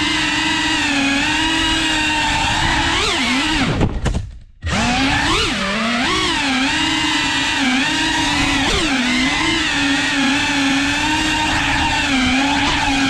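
FPV quadcopter's electric motors whining, the pitch rising and falling as the throttle changes. About four seconds in the sound drops away sharply for half a second, then the motors spool back up and the whine carries on.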